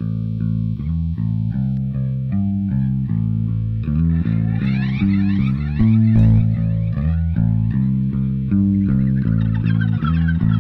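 A rock track starts cold with an electric bass guitar playing a quick riff of short, changing notes; electric guitar joins about four seconds in and the music gets louder.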